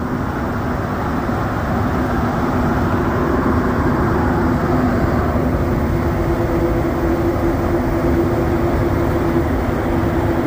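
Cabin noise of a Montreal Metro AZUR rubber-tyred metro train running at speed through a tunnel: a steady rumble with a steady motor hum, one tone of which grows stronger a little past halfway.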